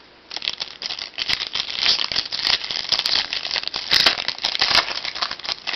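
Foil wrapper of a trading card pack crinkling and tearing as it is opened, a dense run of sharp crackles.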